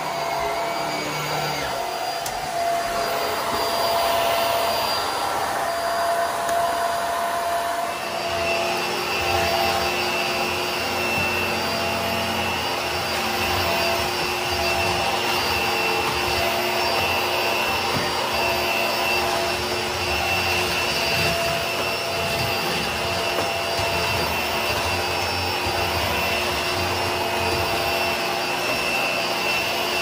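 HART Pet Glide vacuum cleaner running steadily, a motor whine over rushing airflow. About eight seconds in its sound shifts: a deeper hum and rumble join and the whine grows stronger.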